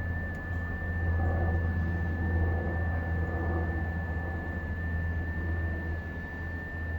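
Icom IC-7600 transceiver's receive audio on the 21 MHz band in FT8 mode: a hiss of band noise with one steady high tone that steps very slightly in pitch, an FT8 digital signal, over a strong low hum.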